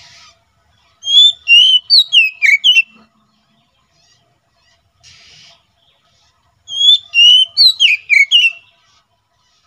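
Oriental magpie-robin (kacer) singing: two loud phrases of quick, varied whistled notes that swoop up and down, each about two seconds long and about four seconds apart.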